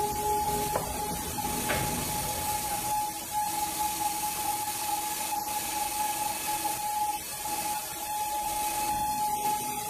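Heavy machinery running steadily: a constant high whine over hiss, with two light knocks about one and two seconds in.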